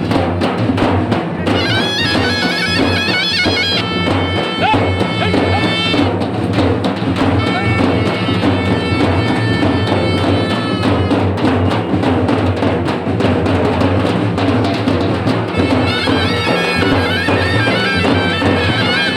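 Loud festival music: steady drumming under a shrill wind instrument that plays melody in three phrases, with breaks of a second or more between them.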